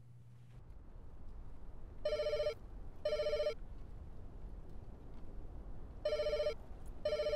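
Telephone ringing in a double-ring pattern: two short warbling rings, a pause of about two and a half seconds, then two more. Under it is a low rumble, and a steady low hum cuts off under a second in.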